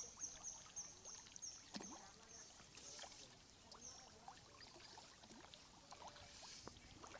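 Near silence: faint water at the surface, with scattered small ticks and a run of short high chirps, about three a second, that fades out about a second and a half in.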